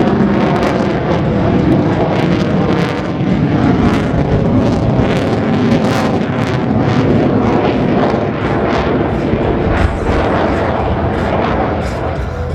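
Military fighter jet's engine noise during a low display pass, loud and continuous with a rough crackle running through it.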